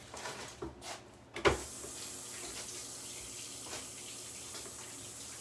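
A sharp knock about a second and a half in, then a kitchen tap running steadily into the sink for a rinse.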